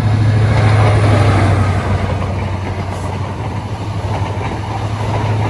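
Great Western Railway High Speed Train with Class 43 diesel power cars passing through a station. A steady low diesel hum sits under loud wheel-and-rail noise, dips slightly as the coaches go by, and swells again near the end as the rear power car passes.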